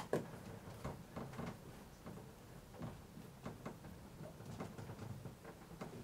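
Hand screwdriver working a screw, with faint irregular clicks and light taps of metal on metal.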